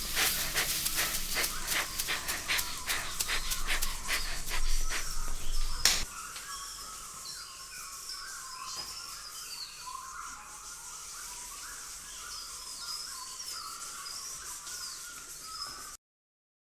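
Foley soundtrack: rapid tapping and knocking for about six seconds, ending in one sharp hit, then birds chirping until the sound cuts off near the end.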